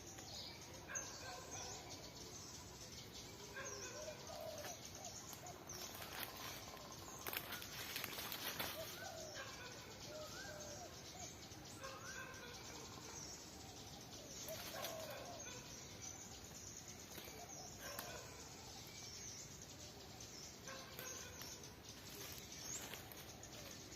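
Chickens clucking softly now and then, short scattered calls, with occasional brief rustles.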